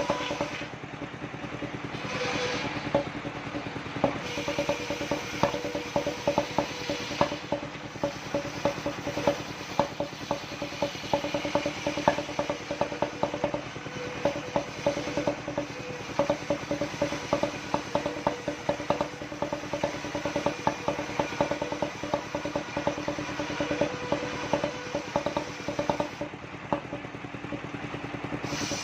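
Home-built portable circular sawmill running: a steady machine hum with rapid, irregular clicking and clatter throughout.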